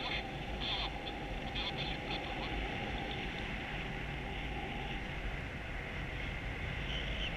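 Airflow rushing over the camera microphone of a paraglider in flight: a steady rush with low buffeting and a hiss that flickers in strength.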